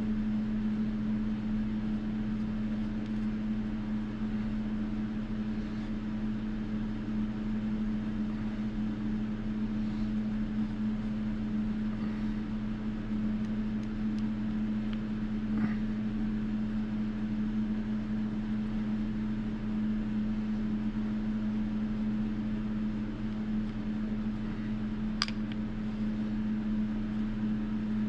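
Steady machine hum, even and unchanging, with a low drone and a mid-low tone held throughout; a couple of faint light clicks fall over it, about halfway and near the end.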